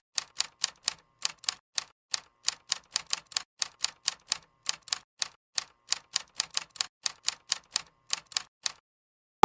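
Typewriter key clicks in a quick, even run of about four to five strokes a second, set over dead silence, stopping shortly before the end.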